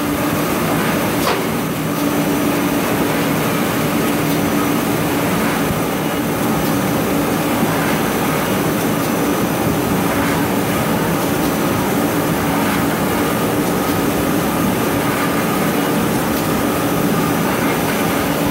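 Jumbo-roll toilet paper cutting machine running: a steady, loud mechanical noise with a constant hum, and a single knock about a second in.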